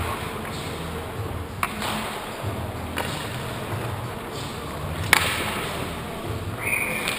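Ice hockey rink sounds during play: a steady low rumble of skating, with three sharp knocks of sticks, puck or boards, the loudest about five seconds in. A brief high tone comes near the end.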